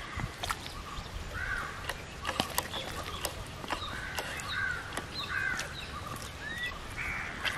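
A bird calls over and over in the background, short arched calls about once a second, while a few sharp clicks and taps come from hands packing marinated chicken into a hollowed tender coconut.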